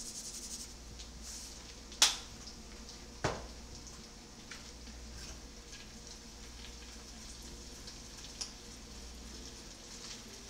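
Food sizzling in a pan on the stove: a steady hiss, with two sharp knocks about two and three seconds in and a few faint ticks after.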